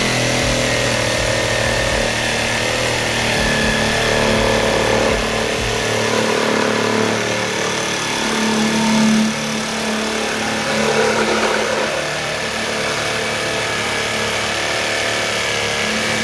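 Cordless reciprocating saw running steadily, its long homemade blade sawing through PVC pipe: the motor's steady hum under the noise of the teeth cutting the plastic.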